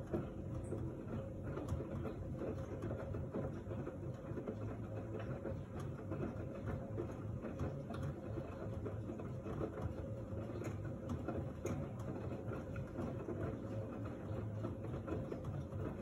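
LG F1289TD direct-drive front-loading washing machine running, its drum turning with water and suds inside: a steady low hum with a constant whine and a fine rattle of small ticks.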